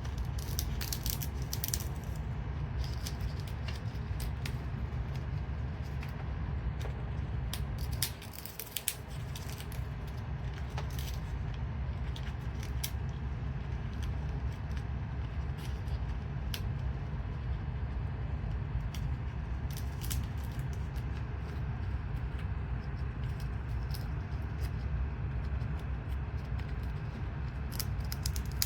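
Yellow-naped Amazon parrot tearing and crunching sola wood in a foraging basket: irregular sharp crackles, snaps and rattles, over a steady low rumble.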